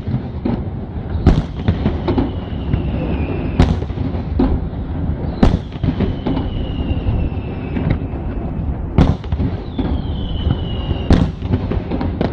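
Aerial fireworks display: sharp shell bursts every couple of seconds, five loud cracks among several smaller ones, over a continuous low rumble. Between bursts a thin high whistle slowly falls in pitch.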